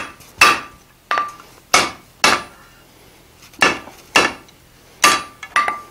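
Hand hammer striking a hot iron bar on the anvil as a square corner is forged: about eight blows, four quick ones, a pause of about a second, then four more. Some blows leave a brief ringing tone from the anvil.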